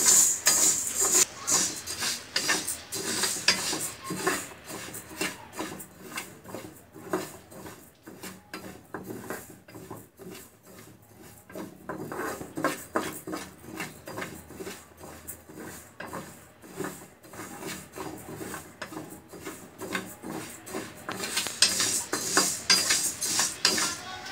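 Red lentils being fried in a pan, stirred with a spatula: irregular scraping and rattling strokes against the pan, busier and louder at the start and again near the end.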